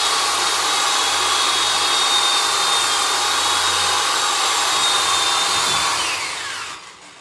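Corded electric drill running at a steady speed, its bit boring into a wooden cutting board, with a high motor whine. About six seconds in, the trigger is released and the motor spins down, the whine falling in pitch.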